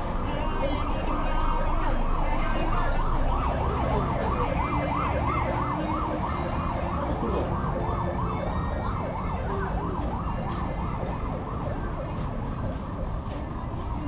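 Emergency vehicle siren in fast yelp mode, its pitch sweeping up and down about three times a second. It fades out near the end, over steady street noise.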